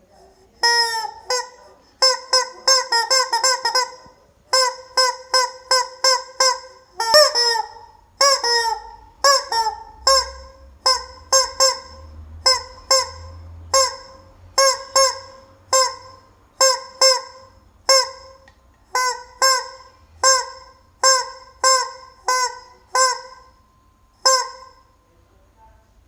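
Rubber chicken toy squeezed over and over, giving short pitched squawks: a quick run of them a couple of seconds in, then about one a second, stopping shortly before the end.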